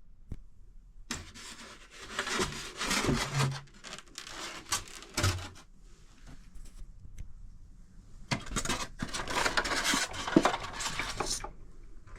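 An old cardboard toy box and its packaging being handled and opened, in two bouts of rubbing, scraping and rustling with a few knocks.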